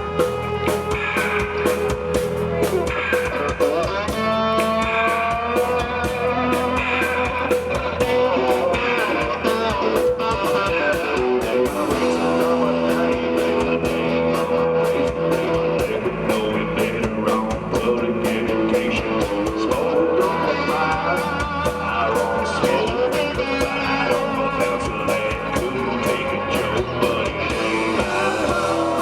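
Live blues-rock band playing an instrumental stretch with no singing. A guitar leads, with bending notes, over a steady drum beat.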